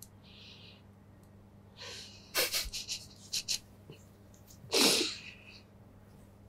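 A person laughing through tears: sniffles and a cluster of short breathy bursts of laughter, then one louder, sharp burst of breath through the nose about five seconds in.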